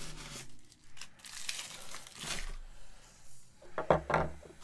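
Packaging rustling and crinkling in irregular bursts as statue pieces are pulled out of their box.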